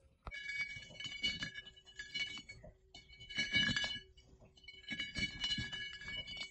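Bursts of jingling and clinking with bright ringing tones, coming in four clusters with short pauses between, over a steady low hum.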